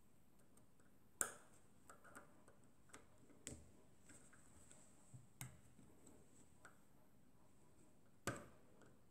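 Small sharp metallic clicks and taps as a thin steel pin and the aluminium master rod on the radial engine's crankshaft are handled and fitted by hand. About four louder clicks come a couple of seconds apart, the sharpest about a second in and near the end, with fainter ticks between them and near quiet in the gaps.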